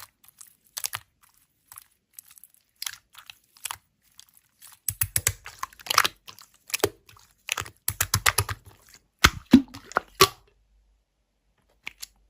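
Slime being squeezed and pressed by hand, giving irregular crackles and small pops, sparse at first and coming thick and fast in the middle, then dying away near the end.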